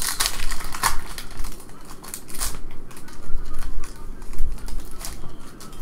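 Foil trading card pack being torn open and crinkled by hand, a few sharp crackles standing out from the rustling.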